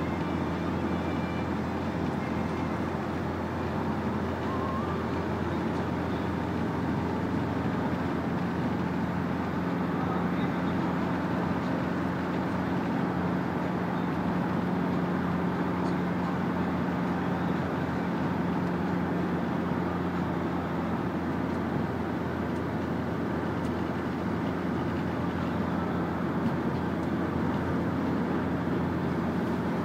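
Steady road noise and engine hum inside a vehicle cruising at motorway speed.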